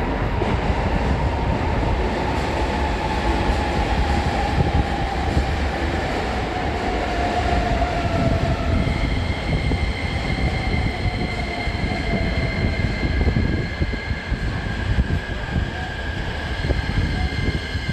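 A Keikyu New 1000 series electric train arriving at an underground station platform: a steady loud rumble. A whine falls in pitch through the first half, and higher steady tones join about halfway through as the train comes in slowly.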